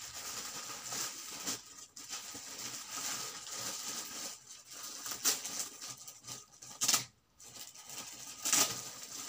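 Gift wrapping rustling and crinkling as a wrapped package is pulled open by hand, with a few louder sharp crackles near the middle and end.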